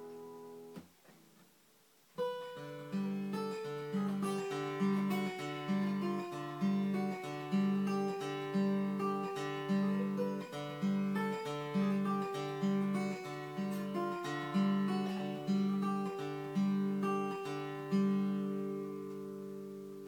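Yamaha FG red label steel-string acoustic guitar being fingerpicked. A ringing chord dies away within the first second and there is a short pause. From about two seconds in comes a steady picking pattern with a bass note about twice a second, ending on a chord that rings out and fades near the end.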